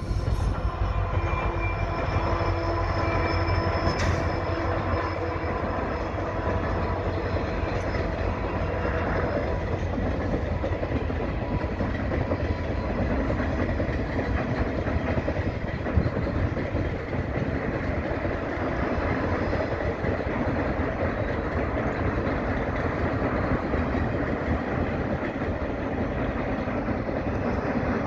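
Passenger express train passing across a concrete viaduct: a steady, continuous rumble of the train rolling over the track. For the first several seconds the locomotive's engine tone rides on top of it, then fades into the noise of the coaches.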